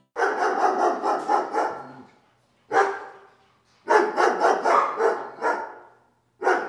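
Dog barking in quick volleys: a run of sharp barks, a single bark a little before the middle, then a second run, and a third starting near the end.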